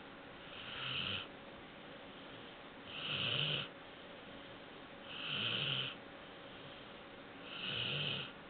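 Four-month-old Labrador Retriever puppy snoring in its sleep: four snores at an even pace about two seconds apart, each a raspy breath with a low rumble under it.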